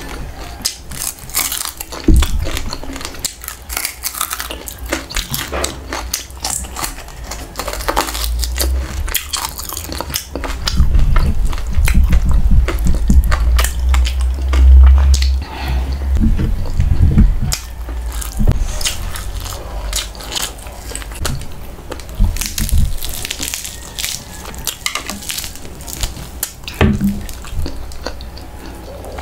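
Close-up eating sounds of a crispy deep-fried tail and rice: crunching, chewing and many sharp crackles, with heavy low thumps in the middle.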